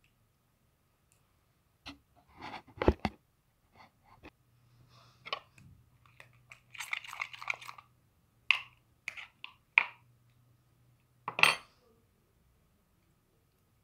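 Irregular clicks, taps and short scrapes of containers and utensils being handled, as when mixing slime, with a few sharper taps about three, eight and a half, ten and eleven and a half seconds in.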